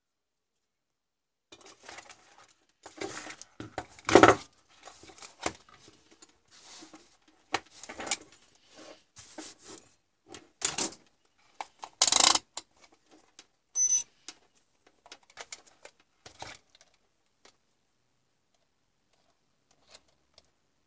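Irregular clatter and knocks of a multimeter and its test leads being handled and set down on a tabletop, loudest about 4 and 12 seconds in, with a short high beep about 14 seconds in; it goes quiet after about 17 seconds.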